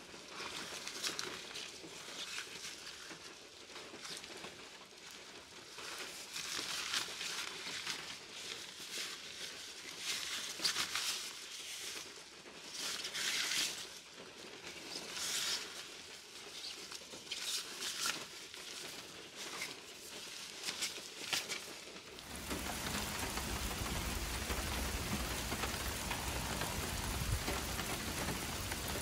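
Irregular rustling and crinkling in short bursts of about a second each. After about twenty seconds this gives way suddenly to heavy rain falling steadily.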